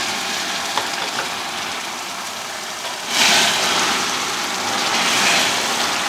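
Caramelized sugar sizzling and foaming in a hot pan. About three seconds in it bursts into a loud hissing boil as hot water is poured onto the caramel, and it swells again near the end.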